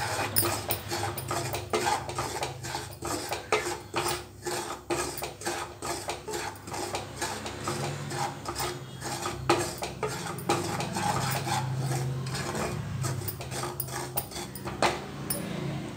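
A wooden spoon stirs and scrapes rice flour being dry-roasted in a metal pan, an irregular run of scrapes and light knocks against the pan.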